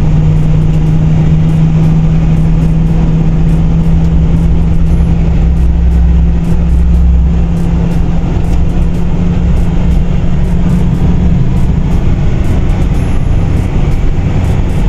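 Steady road and engine noise inside a Kia car cruising at expressway speed, with a constant low drone under the tyre rumble.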